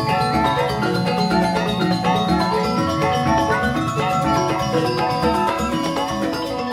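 Balinese joged gamelan: fast, interlocking notes on mallet-struck keyed instruments over kendang hand drums, playing continuously at full tempo.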